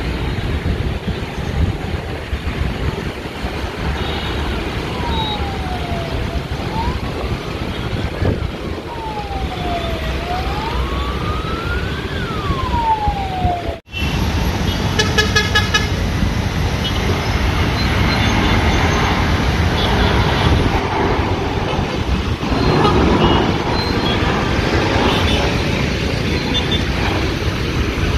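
Steady rumble of vehicle noise with a siren wailing down and up in pitch, two cycles, over several seconds; after an abrupt cut, a quick row of short beeps followed by continued rumble.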